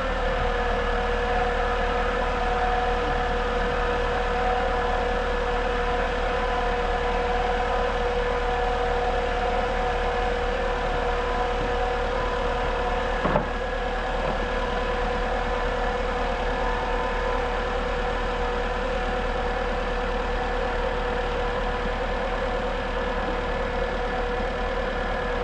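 Freshly rebuilt VW Polo BAH engine idling steadily just after its first start, with a steady whine over the idle. One short click about halfway through.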